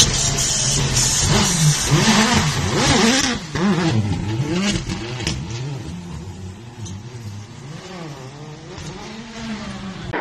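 Rally car's turbocharged four-cylinder engine revving hard through a tight roundabout on snow, its pitch rising and falling in quick surges as the throttle is worked. A hiss sits over it in the first three seconds, then the engine fades steadily as the car pulls away.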